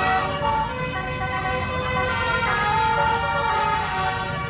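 Telolet bus horn, a set of tuned multi-tone air horns, playing a tune of held notes that step from pitch to pitch every second or so, over a low rumble.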